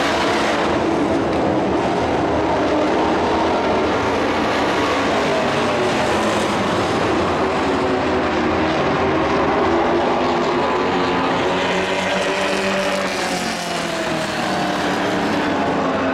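Several dirt-track race trucks' engines running together on the oval. The pitch rises and falls as they pass and lift off and back on the throttle.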